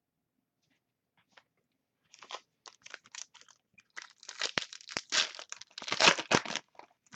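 Foil trading-card pack wrapper being torn open and crinkled by hand, in irregular crackling bursts that start about two seconds in and are loudest in the last couple of seconds.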